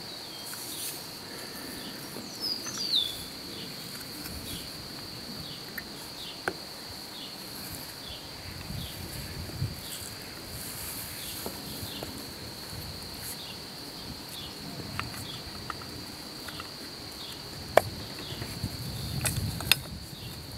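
A steady high-pitched insect trill, with scattered small clicks and taps of metal parts being handled as a lawn-mower starter motor is put back together. One sharp click near the end is the loudest.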